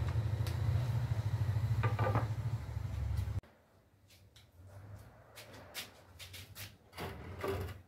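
Hand-held electric angle grinder with a sanding disc running with a steady low hum, cutting off abruptly about three and a half seconds in. After that, a few scattered knocks and taps.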